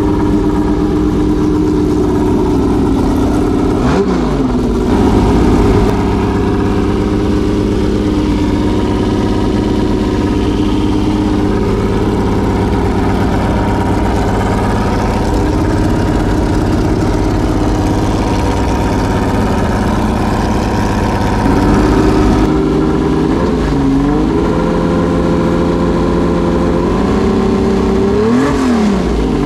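Hand-built 6-litre naturally aspirated gasoline V12 race engine running steadily while warming up. Its note sags briefly and recovers three times and steps up to a higher steady speed about three quarters of the way through.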